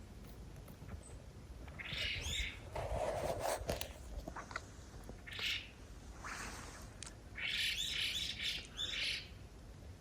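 Wild birds calling in several bouts of high calls: once about two seconds in, again around five and six seconds, and a longer run near the end. A lower, noisier sound comes briefly about three seconds in.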